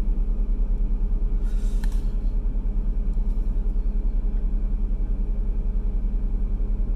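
Steady low mechanical hum, pulsing rapidly and evenly.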